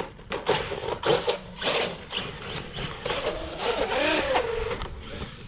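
Traxxas Sledge 1/8-scale RC monster truck being driven: short bursts of throttle in the first half, then the brushless electric motor's whine wavering up and down in pitch from about three seconds in.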